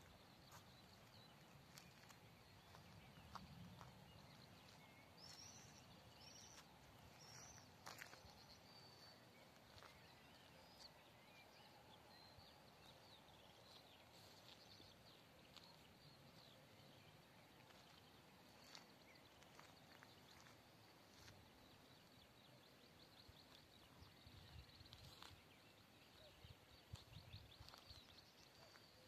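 Near silence: faint rural outdoor ambience, with a few faint high bird chirps in the first several seconds.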